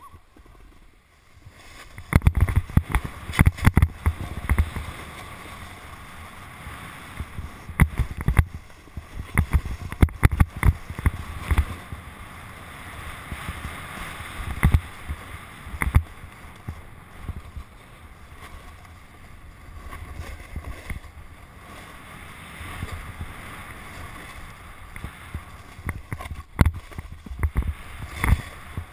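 Snowboard sliding down a snowy run: the board scraping and hissing over uneven snow, with loud bumps and low rumbles coming in bursts, starting about two seconds in.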